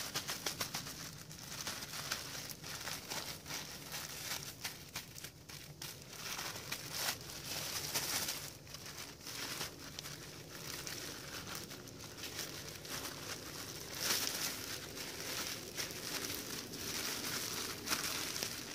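A bag being squeezed and kneaded by hand with wet bannock dough inside, giving a continuous run of small rapid crackles and rustles.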